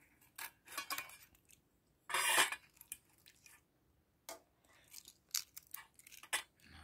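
Hard-boiled egg being peeled by hand: scattered small clicks and crackles of shell breaking and coming away, with one louder scratchy crackle about two seconds in.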